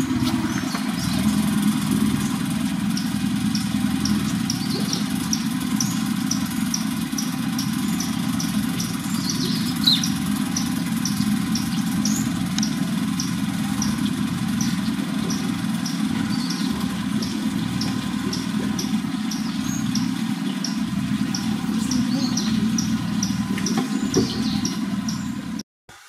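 An engine idling with a steady low hum, with a faint high ticking repeating about twice a second over it; the sound cuts off abruptly just before the end.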